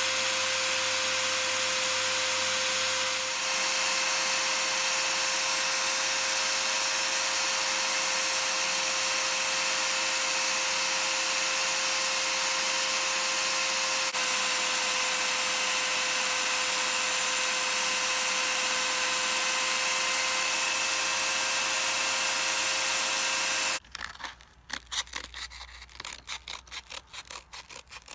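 Drill press spinning an abrasive wheel against the steel hammer head: a steady motor hum under a loud, even grinding hiss. About four seconds from the end it cuts off abruptly and gives way to a run of sharp snips, scissors cutting sandpaper.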